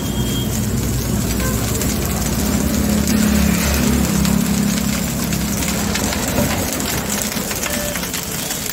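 Street traffic: a motor vehicle's engine running nearby, a low rumble that swells in the middle and eases off, over faint ticks of a metal ladle scraping a wok of fried rice.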